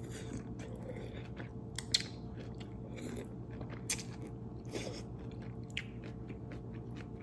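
A person chewing and crunching food close to the microphone, with scattered sharp crunchy crackles and mouth clicks.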